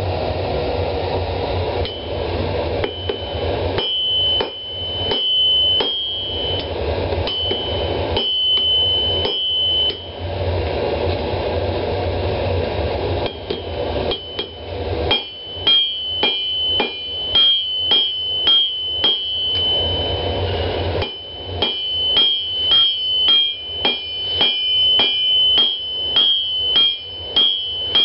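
Hand hammer forging a red-hot tomahawk blank on an anvil, each blow followed by a high, ringing anvil tone. The first blows are scattered over a steady forge roar; about halfway through the roar stops and the blows settle into a steady rhythm of about two a second.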